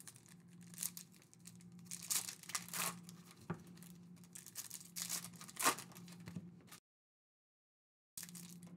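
Foil trading-card pack being torn open and crinkled by hand, in short irregular tearing and rustling bursts over a low steady hum. The sound drops out completely for about a second and a half near the end.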